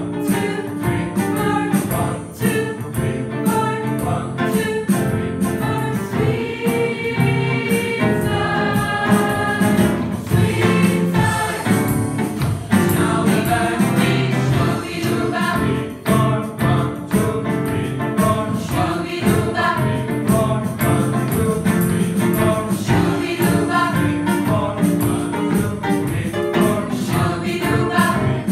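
Choir singing an upbeat swing number together, accompanied by a drum kit whose cymbals tap out a steady beat.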